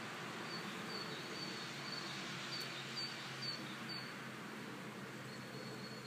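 A small bird calling a short, high note over and over, about twice a second, over a steady hiss of road traffic; near the end a thin, steady high tone takes over from the chirps.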